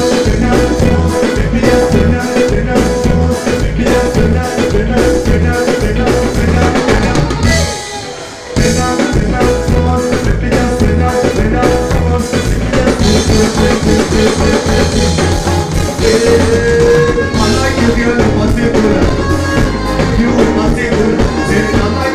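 Ska-style band music with a drum kit keeping a steady beat; it drops away briefly about eight seconds in, then comes back in.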